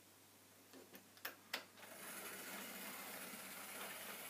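Model railway locomotive, a green GWR pannier tank, setting off with its coach: a few sharp clicks about a second in, then a steady small-motor hum with wheels running on the track from about two seconds on.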